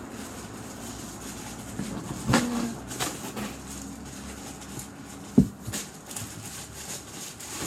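Objects knocking and shuffling as someone rummages in a box, with a few short knocks and one sharp knock about five seconds in.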